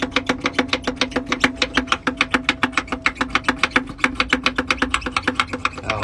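Small 12-volt electric fuel pump clicking rapidly and evenly, about eight clicks a second, over a steady hum, pumping diesel from a bucket to prime a Caterpillar 3406E's fuel system.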